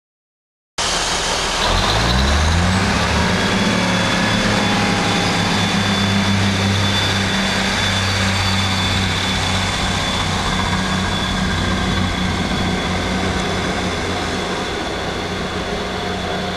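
Class 158 diesel multiple unit pulling away from a station platform: its underfloor diesel engines start abruptly about a second in and rise in pitch over the next couple of seconds, then settle into a steady drone with a high whine as the train gathers speed.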